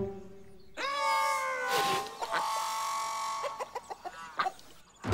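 Cartoon farm animals calling: one long call a little under a second in, a second held call about two seconds in, then a quick run of short calls.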